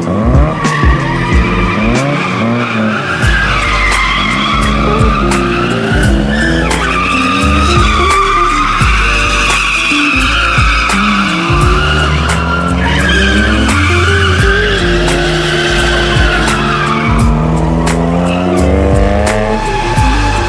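Mazda RX-8's two-rotor rotary engine revving up and down over and over, while the tyres squeal in a long, wavering screech as the car slides.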